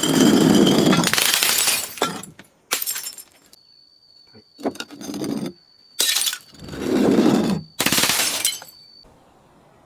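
Glass bottles breaking: a series of about six loud shattering crashes, each trailing off in tinkling fragments, with a faint steady high ringing tone through the middle of the run.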